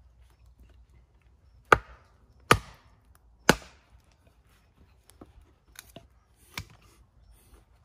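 Small camp axe splitting a piece of wood on a chopping block: three sharp chopping strikes about a second apart, then a few lighter knocks as the wood comes apart.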